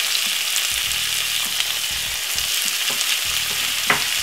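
Chopped onion, tomato and spring onion sizzling steadily in a little vegetable oil in a nonstick stir-fry pan, with scattered crackles and one sharper click near the end.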